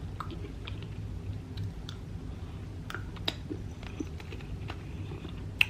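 Close-up chewing of a soft frosted sugar-cookie treat: wet mouth clicks and chews at irregular intervals, with a faint steady hum underneath.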